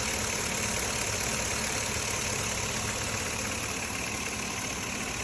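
2005 Chevrolet Avalanche's 5.3 L V8 idling steadily with a ticking noise.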